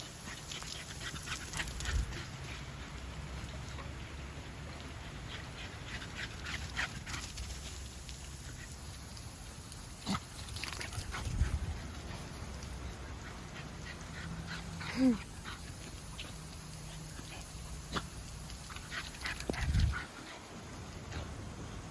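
A dog playing in the rain and sprinkler water, with scattered splashes and knocks and one short whine that falls in pitch about fifteen seconds in.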